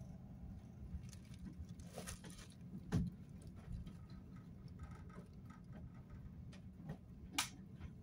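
Low steady hum of a tanker's engine and hull vibration, with scattered light clicks and rattles; a sharper knock comes about three seconds in and another near the end.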